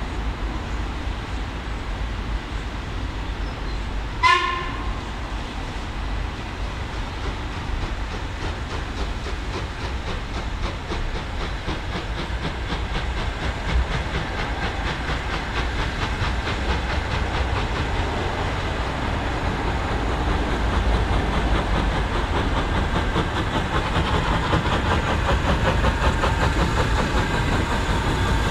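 LMS Ivatt Class 2MT 2-6-2T steam tank locomotive gives one short, high whistle about four seconds in, then works its train away, its steam exhaust and running gear getting steadily louder as it draws near.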